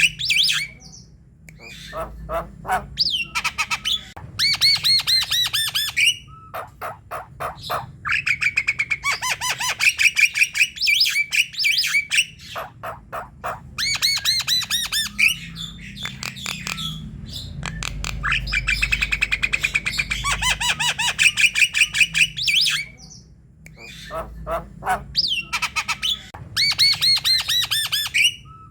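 Javan myna singing a long string of phrases made of fast, harsh repeated notes mixed with shrill whistles, with short pauses between phrases.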